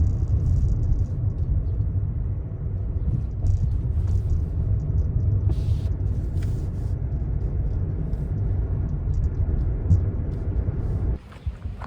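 A steady low rumble that cuts off abruptly near the end.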